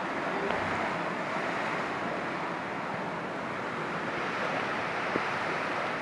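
Heavy rain pouring down in a strong wind: a steady, dense hiss of rain and gusting wind, with one small tap about five seconds in.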